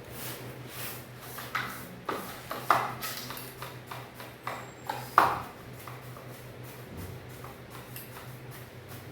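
Household objects being handled and set down: a run of light knocks and clicks, the loudest about three and five seconds in, over a steady low hum.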